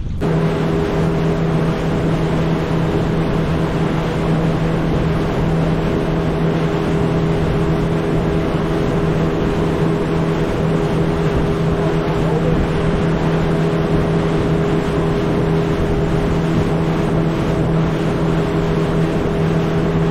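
Outboard motor of a small aluminium boat running at a steady speed, a constant hum, with wind and water noise over it.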